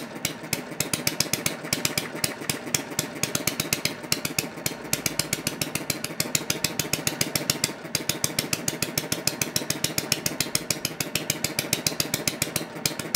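Small Chinese-made four-stroke petrol model hit-and-miss engine running with a rapid, even mechanical clatter.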